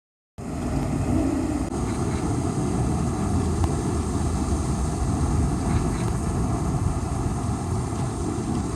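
Steady low rumbling background noise, starting abruptly a fraction of a second in and holding level, with a few faint ticks.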